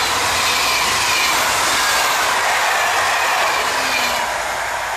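Passenger coaches of an express train rolling past at speed, a steady rush of wheels on rail. It falls away about four seconds in as the last coach passes.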